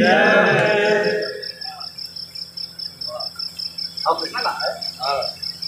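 A cricket chirping in a steady rapid pulse throughout. A sung phrase ends about a second in, and a man's voice comes in briefly later.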